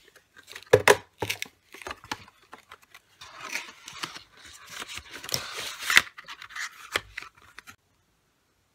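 Cardboard perfume box handled with gloved hands: card scraping and rubbing, with a string of sharp taps and clicks, stopping about a second before the end.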